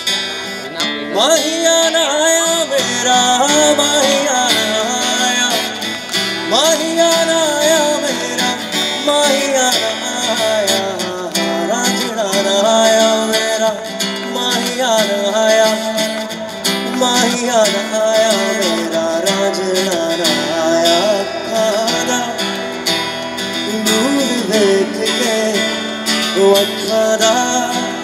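A man singing live into a microphone to a strummed acoustic guitar.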